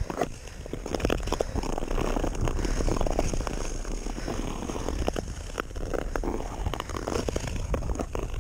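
An ATV riding across rough, choppy ice, its tyres crunching and crackling over the frozen surface in many small sharp clicks above a steady low rumble.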